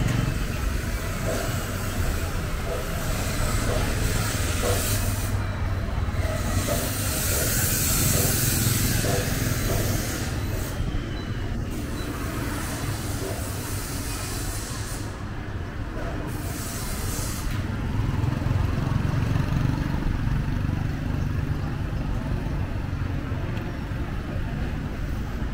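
City street ambience: motor traffic running steadily, with scattered voices in the background.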